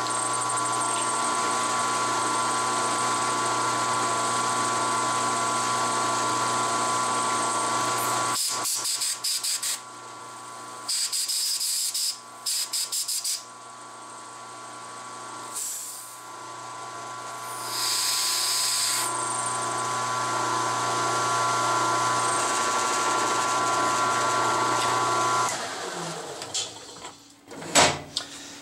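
Milling machine spindle running with a steady whine as an end mill cuts a shallow slot in a cast-iron lathe saddle. The machine noise drops off about eight seconds in, leaving several short bursts of hiss. It then runs again and stops a few seconds before the end.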